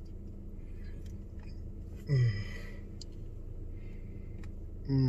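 A man eating tortilla chips with guacamole: a few faint crisp clicks of chips crunching, and two short wordless voice sounds falling in pitch, about two seconds in and again at the end. A steady low hum of the car cabin runs underneath.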